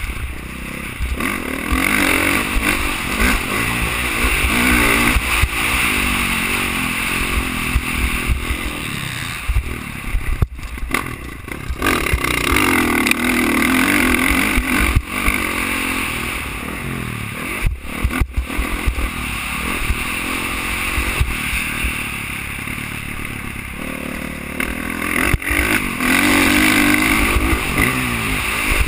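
Dirt bike engine under hard riding, its pitch climbing and falling again and again as the throttle is worked, with wind rumbling on the helmet-mounted microphone.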